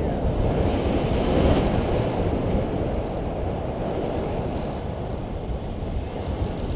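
Wind rushing over the microphone of a selfie-stick camera during tandem paraglider flight, heard as a steady low rumble and rush.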